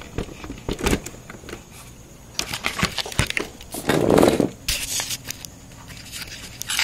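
Irregular plastic and metal clicks, knocks and scrapes of a 5.25-inch optical drive being handled and pushed into a computer case's drive bay, with a louder rubbing sound about four seconds in.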